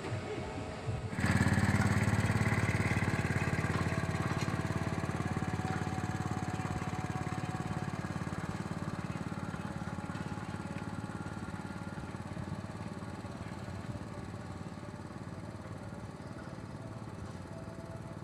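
A vehicle engine running close by. It comes in suddenly about a second in at its loudest, then fades slowly and steadily as it moves away.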